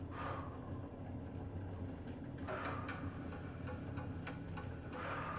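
Steady, low ambient background soundscape from the Calm app, with three soft rushing swells and a few faint scattered clicks.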